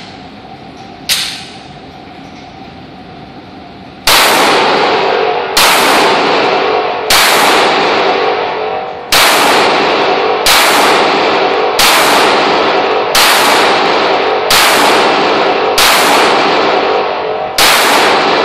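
Gunshots fired at a steady pace: a single shot about a second in, then after a pause about ten shots roughly a second and a half apart, each followed by a long fading echo.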